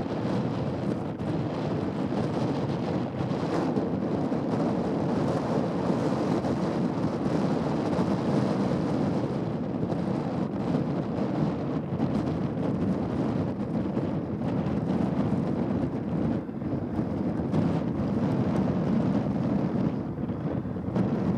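Heavy wind noise buffeting the microphone in a storm, over the steady drone of an Airbus A320-214's CFM56 jet engines during the takeoff run.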